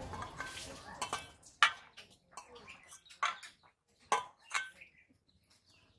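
Hand-eating from a steel plate: a few sharp clinks of the hand against the metal plate while rice is mixed and scooped, spaced irregularly, with the loudest about a second and a half and four seconds in.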